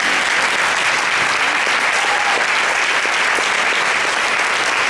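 Audience applauding and cheering, steady and loud.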